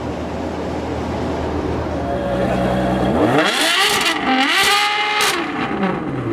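Ferrari 599 SA Aperta's V12 engine idling, then revved hard twice in quick succession, the pitch climbing high and dropping back, before it settles to idle near the end.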